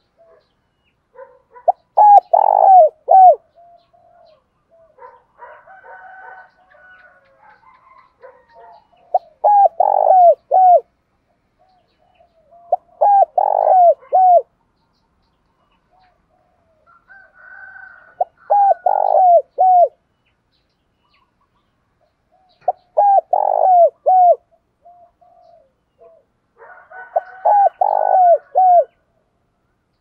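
Spotted dove cooing: six loud phrases of three or four short coos each, a few seconds apart, with fainter coos and chirps between them.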